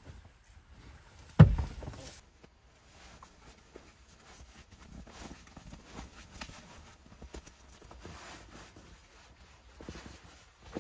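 Puffy nylon sleeping bag rustling as it is folded and stuffed into its stuff sack, with a heavy thump about a second and a half in and small knocks near the end.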